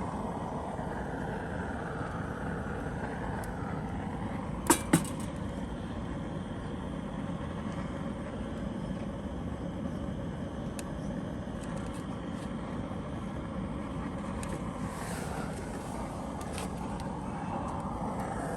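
Steady road-vehicle engine noise, with two sharp clicks close together about five seconds in.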